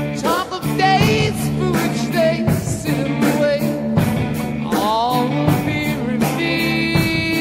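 Rock song with singing over a steady drum beat and guitar.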